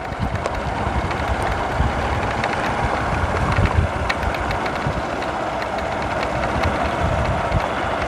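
Motorcycle running along a rough gravel dirt road: steady engine and road rumble with wind noise and scattered small clicks and rattles as the bike goes over stones.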